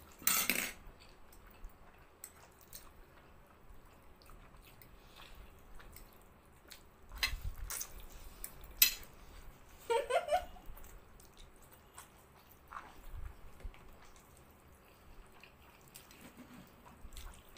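People slurping and chewing mouthfuls of spicy instant noodles, with a few scattered short slurps and wet smacks and one sharp click near the middle. About ten seconds in comes a brief rising vocal sound.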